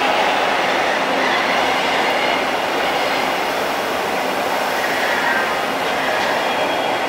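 Toronto TTC T1 subway train pulling out of an underground station, its cars rolling along the platform with a steady rumble of wheels on rail that eases slightly as it leaves. Faint high wheel squeal comes in now and then.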